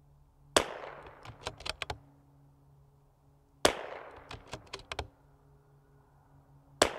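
Bolt-action rimfire rifle firing three shots about three seconds apart, each a sharp crack with a short fading echo. After the first two shots comes a quick run of sharp metallic clicks as the bolt is worked.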